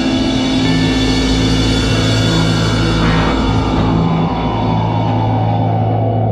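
Background music: a rock-style instrumental of held, sustained tones, with one tone gliding slowly down in pitch through the second half.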